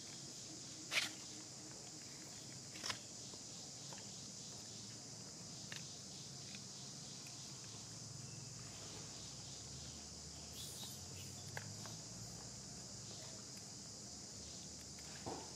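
Faint, steady high-pitched insect chorus, with two short sharp sounds about one and three seconds in.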